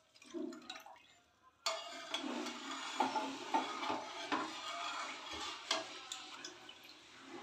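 Milk sloshing as it is stirred in a steel pan with a steel ladle, with a few sharp clinks of the ladle against the pan. The sloshing starts suddenly about two seconds in, after a quiet start.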